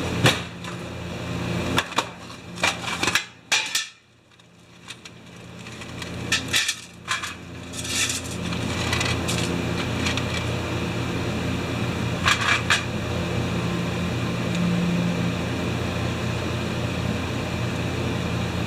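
Small metal tools and carburettor parts clicking and knocking on a workbench, a few sharp clicks at a time. About seven seconds in, a steady low hum sets in and carries on under a few more clicks.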